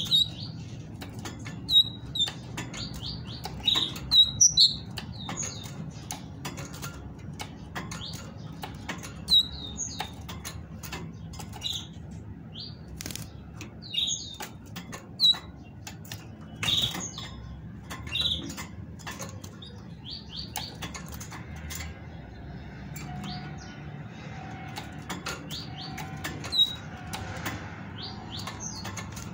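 Caged female great tit flitting about its cage, with repeated wing flutters and sharp clicks of its feet landing on the wire bars. Short, high chirping call notes come in irregular clusters, denser in the first half.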